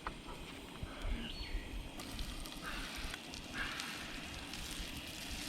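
Butter sizzling softly as it melts in a hot frying pan, with a few light clicks.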